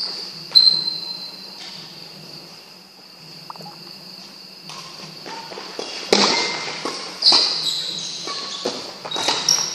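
Badminton play: rackets striking the shuttlecock and shoes squeaking on the court floor. There is one sharp hit about half a second in, a lull, then several hits and squeaks in the last few seconds as a rally starts.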